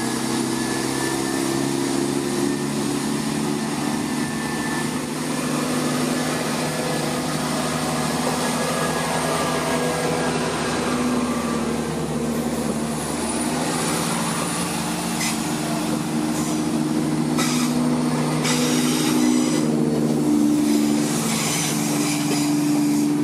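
Class 170 Turbostar diesel multiple unit with its underfloor diesel engines running steadily at the platform. The engines get louder over the last few seconds as the train pulls away.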